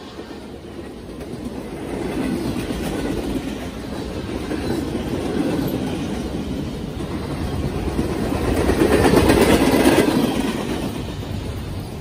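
A Norfolk Southern freight train's cars rolling past: a steady rumble of steel wheels on rail with rhythmic clickety-clack, swelling loudest about nine to ten seconds in.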